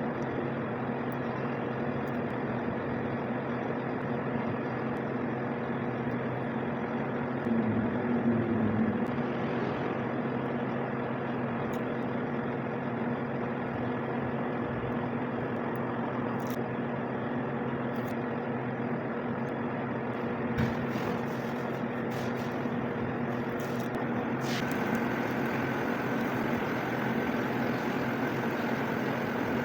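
Steady mechanical hum with a low drone and a few faint clicks; a higher steady tone joins about two thirds of the way through.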